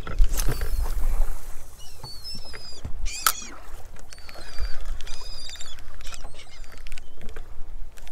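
A flock of seabirds feeding over the water, giving many short, high, squeaky calls, one louder about three seconds in. Wind rumbles on the microphone underneath.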